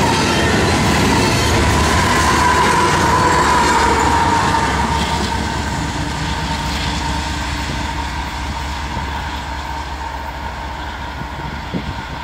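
Double-stack intermodal freight cars rolling past on steel rails, with a steady wheel squeal over the rumble for the first few seconds. The tail of the train and its rear diesel locomotive then draw away, and the rolling noise fades steadily.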